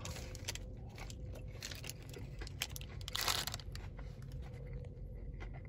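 Close-up crunching and chewing as a crispy fried hash brown is bitten into and eaten, with the loudest crunch a little past three seconds in.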